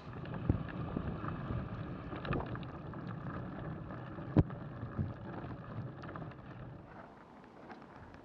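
Handling noise on the camera: rubbing with scattered knocks and clicks, and one sharp loud click about four and a half seconds in, dying down near the end.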